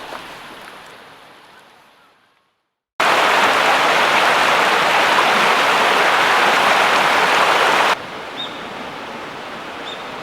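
Loud, steady rushing water, like a stream flowing, that cuts in about three seconds in and stops abruptly about five seconds later. A quieter outdoor hiss with a couple of faint short chirps follows. Just before the water, the background music fades out.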